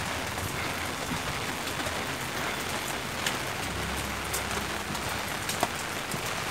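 Steady rain falling on a wet paved lane, an even hiss with a few sharper drop ticks now and then.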